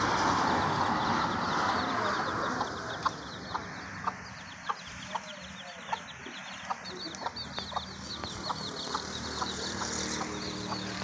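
Aseel hen clucking to her chicks, short clucks about twice a second, over a fast, steady high-pitched peeping. There is a rush of noise in the first couple of seconds.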